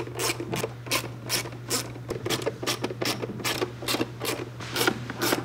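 Socket ratchet clicking in quick irregular strokes, about two or three clicks a second, as Torx screws are loosened from a plastic engine airbox lid.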